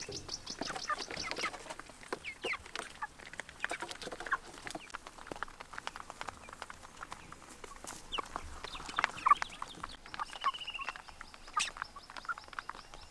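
A flock of young meat chickens (broilers) clucking and peeping as they feed, many short high calls overlapping, with a quick run of peeps at the start and a brief trill about ten seconds in, over scattered light taps.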